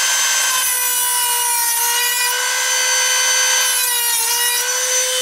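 Small high-speed rotary tool with a cutting disc slicing through model railway rail: a steady high motor whine with a harsh grinding rasp while the disc bites. The pitch sags briefly under load about four seconds in, and the tool stops at the end.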